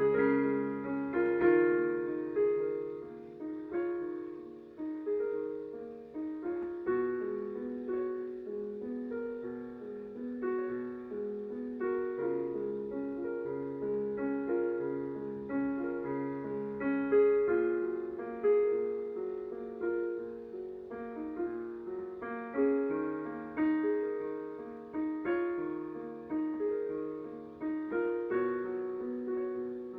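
Solo piano playing a slow piece of overlapping notes and chords, each note struck and left to ring out.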